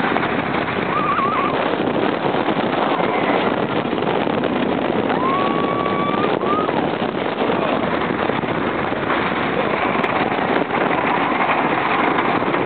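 Lightning Racer wooden roller coaster train running at speed over its wooden track, heard on board: a loud, continuous rumble and rattle of the wheels on the track. Short high-pitched wails rise over it briefly about a second in and again about five seconds in.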